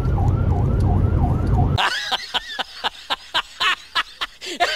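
A siren-like wail rising and falling about three times a second over the low rumble of a moving car. It cuts off abruptly just under two seconds in and gives way to quick, regular bursts of snickering laughter.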